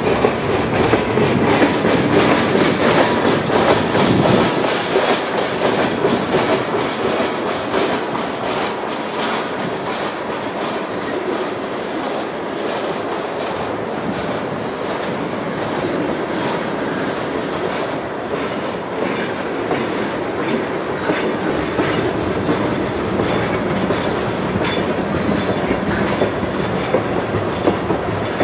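Freight train of tank cars rolling past close by, wheels clicking steadily over the rail joints. Louder and fuller for the first few seconds, then steady.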